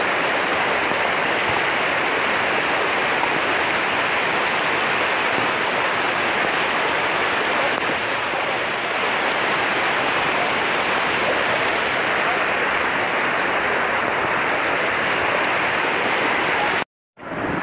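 Muddy floodwater of a mountain stream rushing fast across a road, a steady even rush of water that cuts off suddenly near the end.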